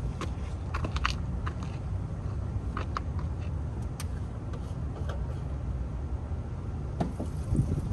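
Steady low rumble of microphone handling and movement, with scattered light clicks and a louder knock near the end, after which the rumble drops away.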